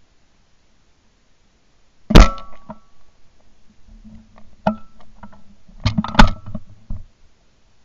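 A 20-bore over-and-under shotgun, a Beretta Silver Pigeon, fires a very loud shot about two seconds in, with a short metallic ring after it. Further sharp knocks and cracks follow, the loudest of them around six seconds in.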